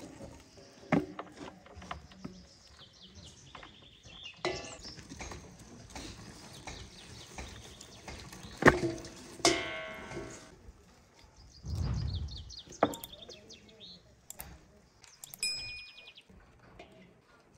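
Whole raw chickens being handled and cut with a knife in a stainless-steel bowl: scattered knocks and clinks against the metal bowl, with a duller thud about twelve seconds in. Small birds chirp in the background.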